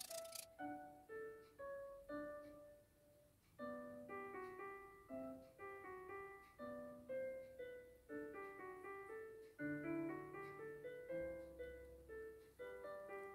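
Background piano music: a melody of single notes with a short pause about three seconds in.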